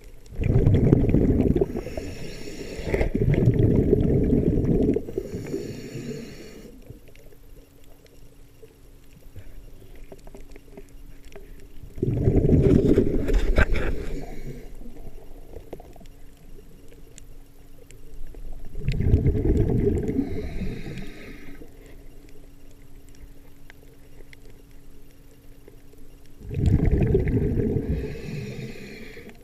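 A scuba diver breathing underwater, heard close to the camera. Each exhalation is a burst of rushing bubbles about two seconds long, five of them, several seconds apart.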